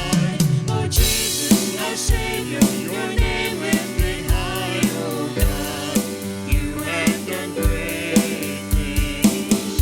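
Live gospel worship music: a band with a steady drum-kit beat, about two strokes a second, under sung melody.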